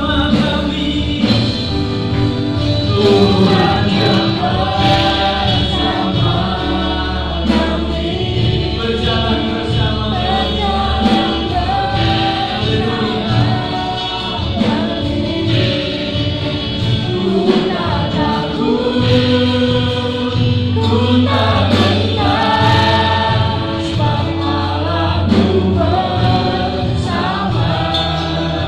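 A group of voices sings an Indonesian Christian worship song in unison and harmony, over instrumental accompaniment with a steady bass line.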